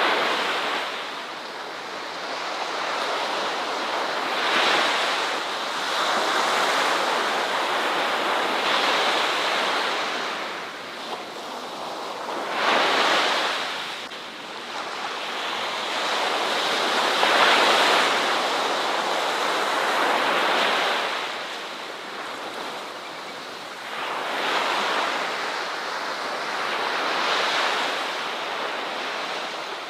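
Ocean waves breaking on a beach: a steady wash of surf that swells and falls back every few seconds, with the loudest breakers about 13 and 18 seconds in.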